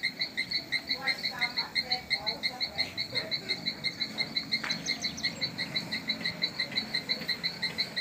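An animal calling on and on in a steady run of short, high, evenly spaced notes, about six a second.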